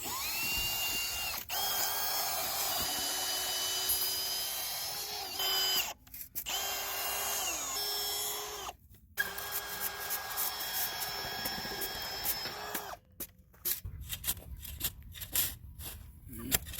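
Power drill fitted with a socket driving in a fence bolt, its motor whining up to speed and winding down three times in runs of a few seconds. After the last run come a string of light clicks and knocks.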